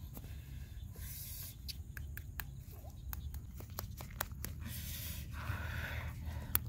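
Eggshell being tapped and cracked open: a run of sharp, irregular clicks, with a couple of brief rustles of a leaf being handled and a steady low rumble underneath. The egg has been roasted in the embers and is cracked with a small stone and the fingers.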